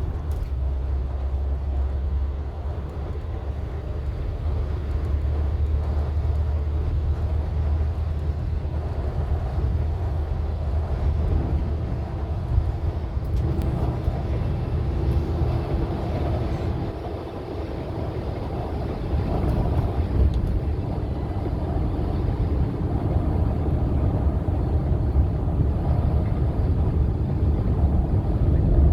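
Steady low engine and road rumble inside a rail replacement coach on the move, easing for a moment a little past halfway before building again.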